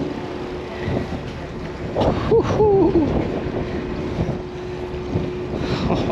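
Wind rushing over the microphone over the steady hum of the boat's engine, with a brief wavering call about two seconds in.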